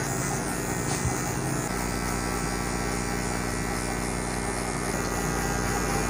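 Cordless DINGLING hair clipper running with a steady electric hum while it cuts hair up the side of the head.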